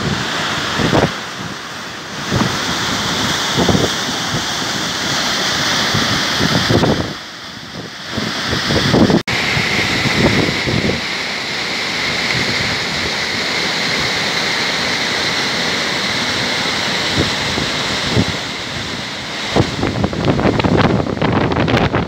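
Waterfall rushing steadily down a narrow rocky chute, a loud even roar of falling water. It is mixed with gusts of wind buffeting the microphone, which are strongest in the first seconds and near the end. The sound breaks off sharply for an instant a little after nine seconds in.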